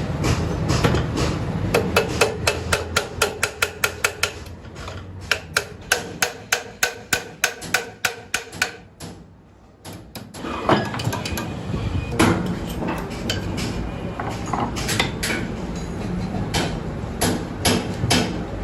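Rapid, even metal-on-metal knocking on cast-iron sewing-machine parts, about four to five strikes a second, stopping about nine seconds in. After a brief pause come irregular knocks and clatter.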